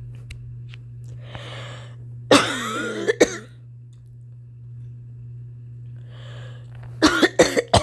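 A woman coughing: a drawn breath in, then a loud hacking cough fit about two seconds in, another breath, and a quick run of four or five sharp coughs near the end. A persistent cough that she has put down to allergies but fears may be asthma.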